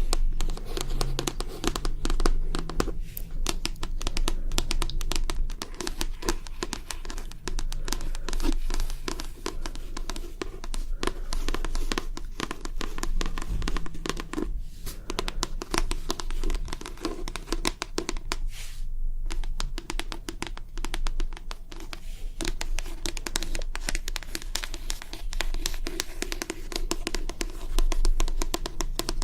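ASMR tapping and scratching: a fast, dense run of small taps and scratches that goes on without pause, easing off briefly a few times.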